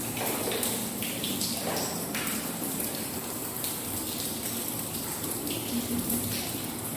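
Steady rush of heavy typhoon rain, with irregular louder spatters.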